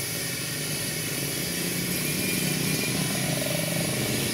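Steady machinery running: a low engine-like hum under an even hiss, with no change in pace.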